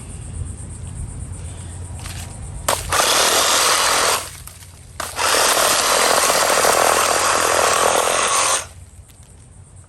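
SunJoe electric wood chipper/shredder grinding through a thick branch in two loud stretches, one about three seconds in and a longer one from about five seconds until near the end. The branch is one the owner thinks is probably too big for the machine.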